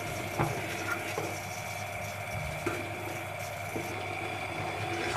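Metal spatula scraping and tapping against the pot now and then while thick milk with vermicelli is stirred, over a steady mechanical hum.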